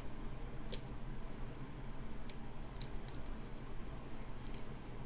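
Lock picking in a padlock's pin-tumbler cylinder: a few faint, sharp clicks and ticks, spaced about a second apart, as the pick works the standard pins under tension.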